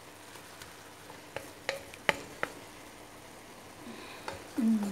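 Wooden spatula stirring vegetables in a wok over a faint sizzle, with a few sharp knocks against the pan between about one and a half and two and a half seconds in. A brief falling voice sound comes near the end.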